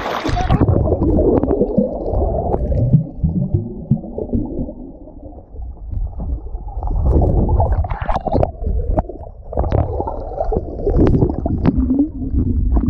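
Muffled underwater rumble and gurgling from a camera held under the water, with bubbling, swirling water and a few sharp knocks against the housing. The higher sounds cut out just as the camera goes under.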